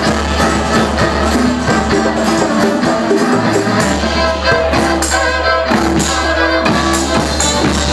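Live Balkan gypsy band playing loudly: violin lead over double bass, guitar and percussion, with a strong, sustained bass line.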